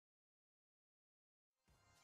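Dead silence, then faint music fading in over the last half second.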